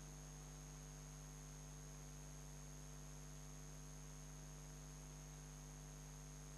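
Near silence: a faint steady electrical hum with a thin high whine, the recording's background noise.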